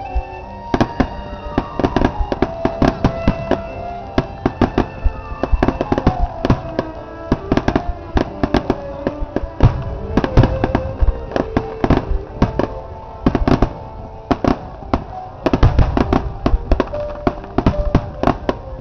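Aerial firework shells bursting in rapid succession, a dense run of sharp bangs and crackles. The bangs come thickest about ten seconds in and again near the end. Music plays along underneath.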